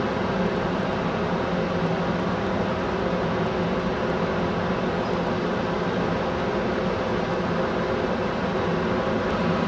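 Steady drone of a ship's engines and machinery while it manoeuvres to dock: a constant hum with no change in pitch or level.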